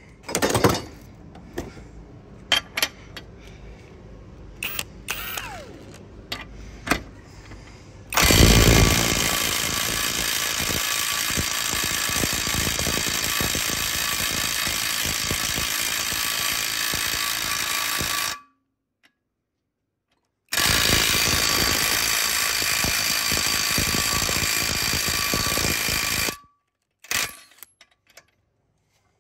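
Cordless half-inch impact wrench hammering continuously on a nut in a vise, a run of about ten seconds, a short stop, then a second run of about six seconds. The wrench is left in forward, so it is tightening the nut, torqued to 225 ft-lb, rather than breaking it loose. A few light metal clicks from handling the tools come before the first run.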